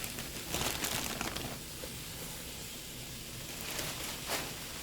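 Handfuls of fresh kale leaves rustling and crinkling as they are grabbed and dropped into the pot, in two bouts.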